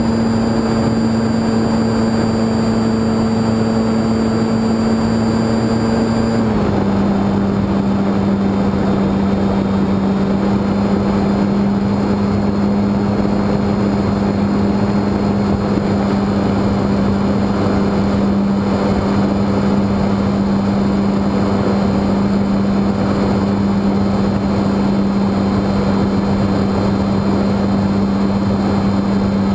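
Electric 3548-09 brushless outrunner motor spinning an APC 14x7 propeller at steady cruise, a loud even drone over rushing airflow noise. Its pitch steps down slightly about six seconds in and then holds.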